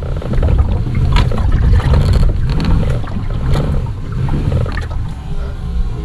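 Water sloshing and gurgling against a fishing kayak, under a heavy low rumble, with a couple of short knocks.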